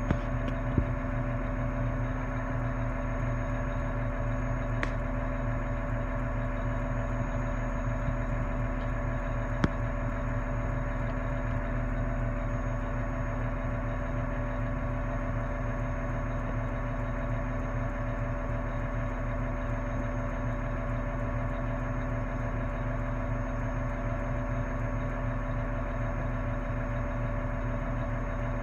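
Engine idling at a steady, unchanging pitch, heard from inside a machine's cab, with a faint click about five and again about ten seconds in.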